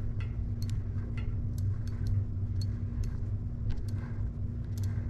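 Scattered light metallic clicks and ticks as the freewheel and hub parts are handled and taken off the rear wheel, over a steady low hum.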